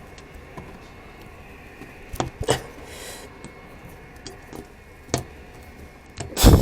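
Hand-work noises as the metal retaining spring of an LG washing machine's door gasket is stretched and worked into place with pliers: a few light clicks, then a louder sharp knock near the end.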